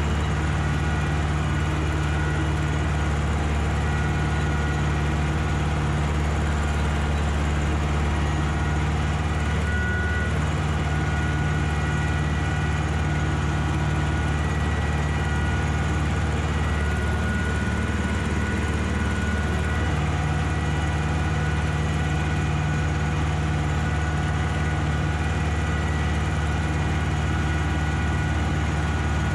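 Ursus tractor's diesel engine running steadily while working the field, a constant low drone whose note shifts briefly around ten seconds in and again from about seventeen to twenty seconds.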